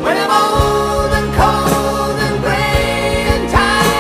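Rock music playing, with singing over the band.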